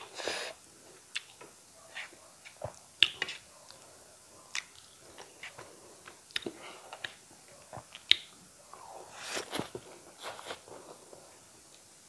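Close-miked eating by hand: chewing with wet lip smacks, and fingers squishing and mixing rice with curry on the plate, heard as irregular soft clicks and short squishy bursts.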